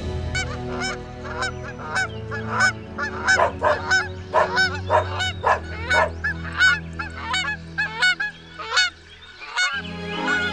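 A flock of white domestic geese honking, many short calls a second, overlapping. The calls stop shortly before the end.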